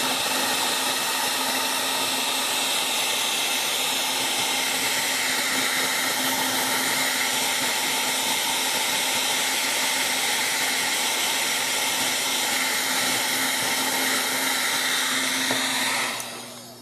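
Electric heat gun running steadily, its fan giving a constant hum under the rush of hot air, while it shrinks the heat-shrink sleeve of a crimped wire connector. It cuts off near the end.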